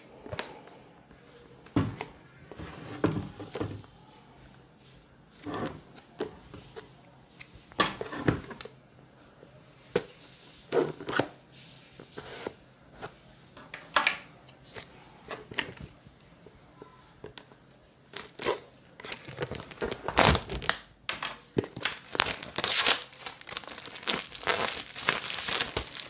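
Clear plastic shrink-wrap on a cardboard camera box being cut open and torn off, with scattered short rustles and clicks, then a denser stretch of crinkling over the last several seconds as the film is pulled away.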